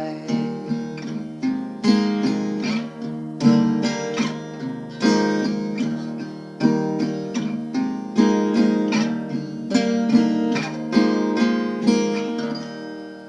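Acoustic guitar playing the closing instrumental bars of a song: a chord struck about every one and a half seconds with picked notes between, the last chord ringing and fading out near the end.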